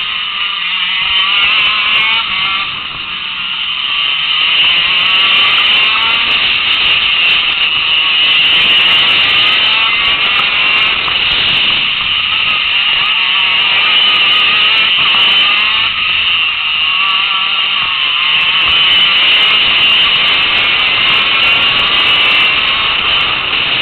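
KZ2 shifter kart's 125cc two-stroke engine screaming at high revs. The pitch rises and falls as the kart brakes into corners and accelerates out of them, with short dips in revs a few times.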